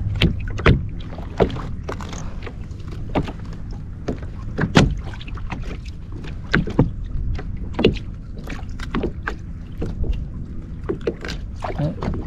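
Irregular knocks, taps and clatter against a plastic fishing kayak, over a steady low rush of wind and water.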